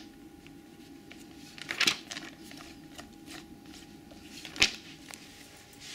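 Paper pages of a magazine-style TV guide being turned by hand: a few short rustles, the loudest about two seconds in, and a sharp flick of a page a little before five seconds in.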